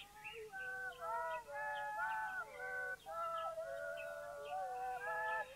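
High-pitched polyphonic music: several pure-toned melodic lines sound together in held, overlapping notes that step and slide between pitches, with no beat.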